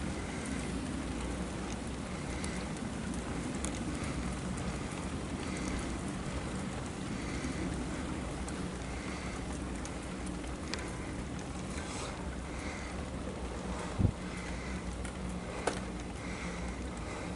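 Steady rush of wind and tyre noise from a bicycle rolling along an asphalt road. Near the end come two sharp knocks, about a second and a half apart.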